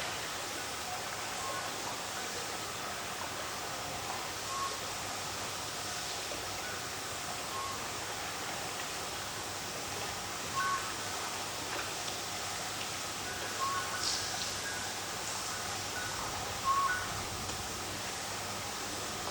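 Steady night wind, with a short, faint high call repeating every few seconds over it and a couple of brief louder sounds about midway and near the end.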